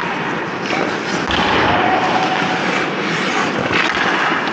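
Ice skate blades and goalie pads scraping and sliding on rink ice close by, a steady rasping rush with a few sharper scrapes and knocks.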